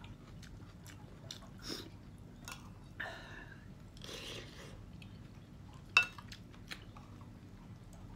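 A person eating close to the microphone: chewing and taking mouthfuls, with light clicks of a spoon and fork against a plate and one sharp clink about six seconds in.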